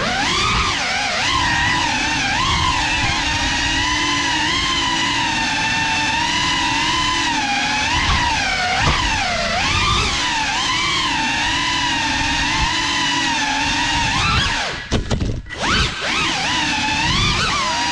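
GEPRC Cinelog 35 cinewhoop's brushless motors and ducted propellers whining, the pitch rising and falling constantly with the throttle. About fifteen seconds in the whine drops away in a few quick dips as the throttle is chopped, then picks up again.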